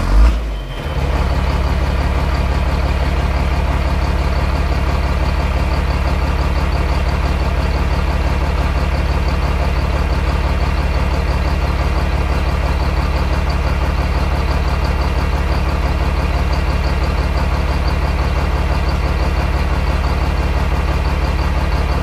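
A large vehicle engine idling at a steady, unchanging pitch, after a brief louder burst at the very start.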